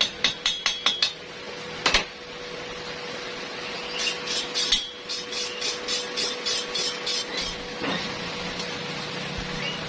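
Quick light hammer taps on steel, several a second, ringing high, with a louder double strike about two seconds in and another run of taps from about four to seven seconds; a steady faint hum underneath.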